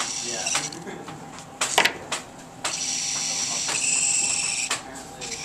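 A small Arduino wheeled robot's electric drive motors whirring with a steady high whine as it drives off, after a few sharp clicks and clacks in the first seconds.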